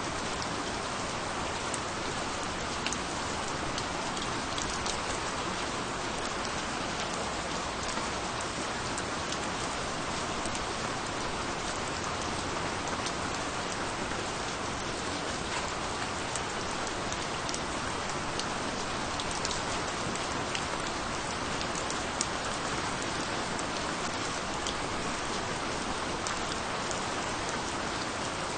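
Steady rainfall, an even hiss with scattered close drops ticking on a surface.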